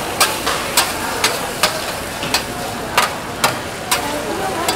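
Metal spatula striking and scraping a flat steel griddle while it chops and pushes egg, about eight sharp clacks at an uneven pace, over the steady sizzle of egg frying.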